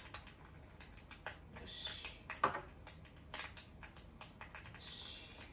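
Light metallic clicks and scrapes as ground coffee is put into the aluminium filter funnel of a Bialetti Moka Express stovetop espresso maker, with a sharper click about two and a half seconds in.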